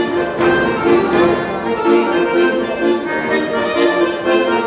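Ukrainian folk dance music led by an accordion, notes changing in a steady rhythm.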